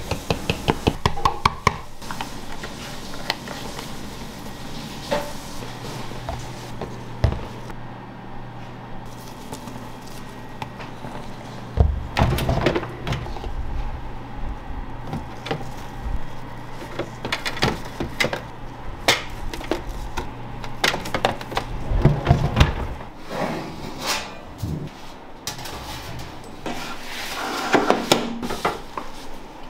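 Kitchen handling noises: a quick run of clicks at the start, then scattered knocks and two heavy thunks, over a low steady hum through the middle.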